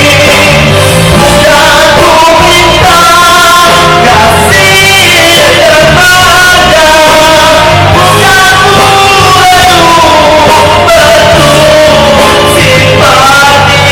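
Rock song with a lead singer holding and bending long notes over a full band, loud and densely mixed.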